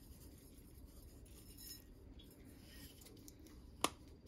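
Faint kitchen handling sounds while pink salt is added to a bowl of seasoned raw potato sticks, then a single sharp click near the end as a container is set down on the counter.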